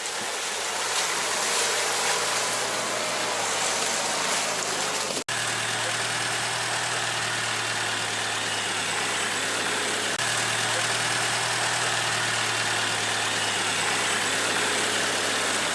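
Steady machine-like hum with an even hiss over it, broken by a brief dropout about five seconds in.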